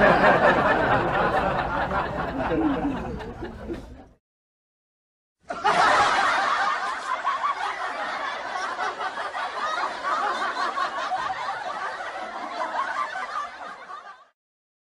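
Laughter sound effects in two takes: the first fades out about four seconds in, then after a second of silence a second, longer stretch of laughter starts and fades out near the end.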